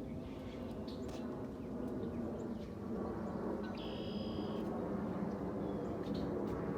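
Outdoor ambience: a steady low background rumble with scattered short bird chirps. About four seconds in comes one held, whistled bird call lasting about a second.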